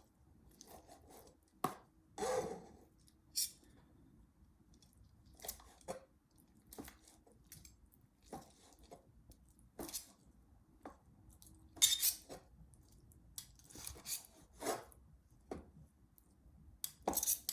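Irregular clinks, knocks and scrapes of kitchen utensils against a dish as food is put in and handled, with a louder clatter about twelve seconds in.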